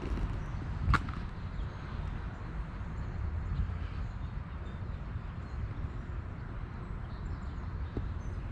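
Low, steady rumbling outdoor background noise, with one sharp click about a second in.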